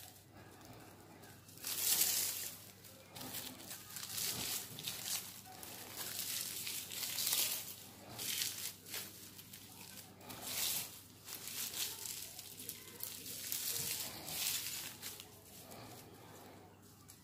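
Coloured plastic strips being rolled and twisted by hand against a bare thigh to lay them into a spinning-top whip cord. The strokes give repeated crinkling rustles, about one a second, that fade near the end.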